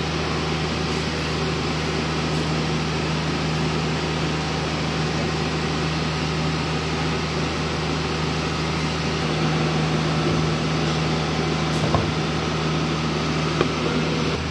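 Tsuzumi TDG15 15 kVA silent diesel generator's four-cylinder engine running at a steady speed, a constant drone with a low hum. Two brief knocks come near the end.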